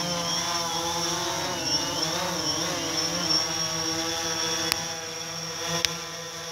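Quadcopter drone's propellers whining in a low hover just after takeoff, the pitch wavering up and down as the motors adjust, with a steady high tone above. Two short clicks come near the end.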